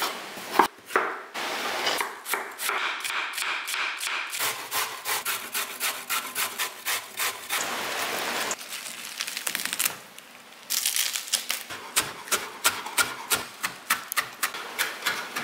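A kitchen knife slicing and chopping vegetables on a wooden cutting board: a dense run of quick knife strokes, a short pause about ten seconds in, then steady chopping at about four strokes a second.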